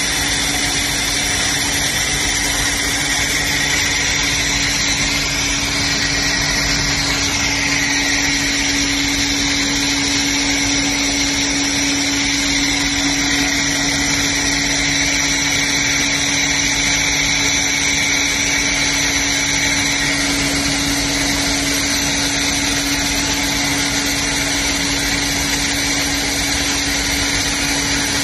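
Wire flattening machine running steadily: an even motor hum with constant high-pitched whines as the wire is drawn through the rollers and guide pulleys.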